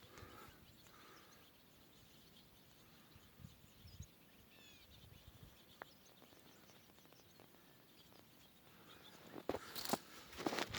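Faint calls of small birds, a few short high chirps over an otherwise quiet field, then footsteps crunching in snow near the end.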